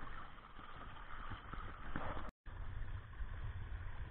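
Sea water splashing and slapping against a kayak's hull and outrigger float, with wind rushing over the microphone. The sound drops out for a moment a little past halfway.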